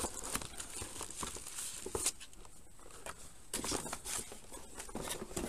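Hands rummaging through a cardboard motherboard box: plastic accessory bags and paper crinkling and rustling, with scattered light clicks and knocks.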